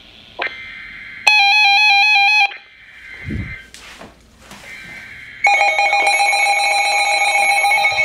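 Weather radio alert alarms. One radio gives a loud warbling alarm that steps between two pitches for about a second. About five and a half seconds in, several radios' alarm tones start at once, a steady overlapping mix of beeps at different pitches, with a few low handling thumps before it.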